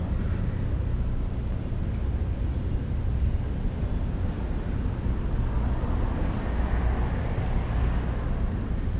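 Steady low rumble of wind buffeting the camera microphone outdoors.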